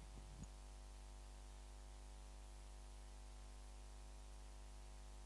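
Near silence: a faint steady electrical hum with light hiss, with one faint knock about half a second in.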